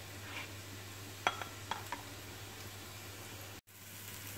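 A slotted spoon clicking a few times against a stainless steel pot while foam is skimmed off a boiling stew, over a faint bubbling. After a sudden cut near the end, diced onion sizzles softly in oil in a frying pan.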